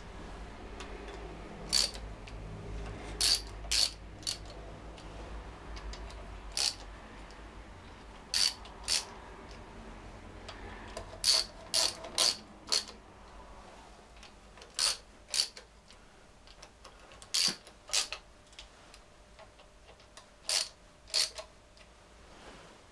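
Sharp metallic clicks of a ratchet spanner, coming in short runs of two or three with pauses of a second or more between, as the crankcase bolts are turned a little at a time to draw the outer crankcase half evenly onto its dowels.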